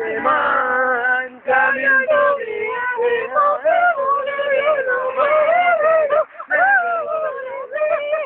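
Voices singing loudly, with long held notes that waver up and down in pitch, breaking off briefly after about six seconds.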